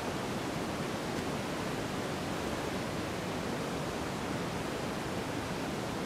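Steady wind, a constant even rushing noise.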